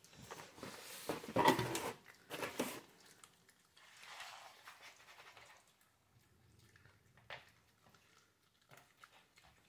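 Two small dogs eating treats off a wooden floor: chewing and scattered clicks and taps, louder in the first three seconds and fainter after.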